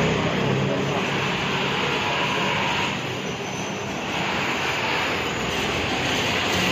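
Steady street-traffic noise from motor scooters running along a narrow city street, with a slight dip in the middle.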